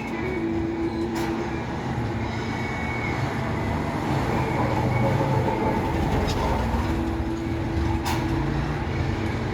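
Steady low rumble with faint held tones coming and going, and a few sharp clicks.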